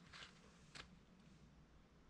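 Near silence with a couple of faint, short rustles or clicks from handling packaging.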